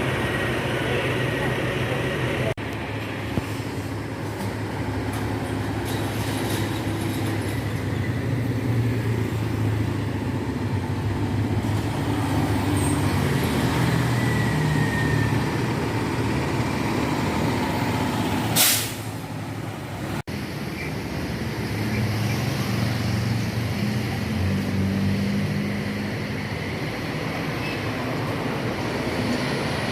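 Large tour-bus diesel engines running, with a brief sharp hiss of air brakes about two-thirds of the way through.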